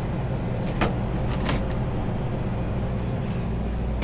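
Steady low electric hum of a shop's glass-door drink cooler running, with a few sharp clicks and knocks about a second in and again half a second later.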